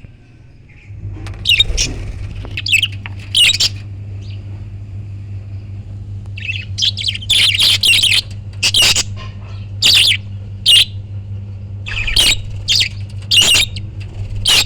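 Parrots calling in short, repeated calls, a few at first and coming thick and fast from about six seconds in. A steady low hum runs underneath.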